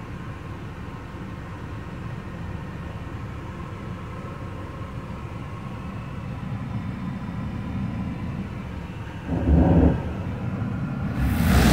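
Semi-truck's diesel engine rumbling at idle from inside the cab, with a brief loud burst about nine seconds in; near the end the truck wash's equipment starts up with a sudden loud rushing noise.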